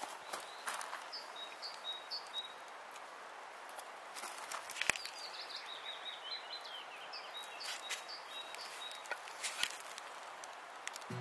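Quiet forest ambience with a small bird singing short, high chirping phrases, twice in a row with a pause between. A few sharp clicks or snaps are scattered through it, the sharpest about five seconds in.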